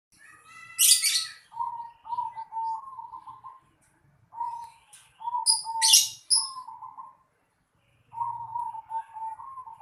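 Zebra dove (perkutut) cooing in rippling, stuttering phrases, repeated in three bouts. Another small bird's sharp high chirps cut in about a second in and again around the middle.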